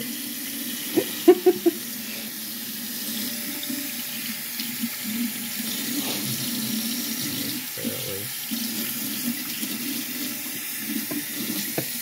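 Kitchen faucet running steadily, its stream pouring into the garbage-disposal drain of the sink. A few brief, louder sounds stand out over the running water about a second in.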